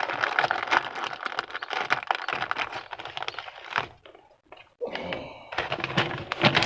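Clear plastic bag crinkling and rustling in the hands as a packet of fishing hooks is pulled out of it, a dense crackle of small clicks with a short pause about four seconds in.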